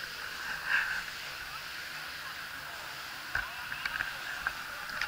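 Suzuki TC 125 two-stroke single puttering along at low speed, with a few short sharp clicks in the second half.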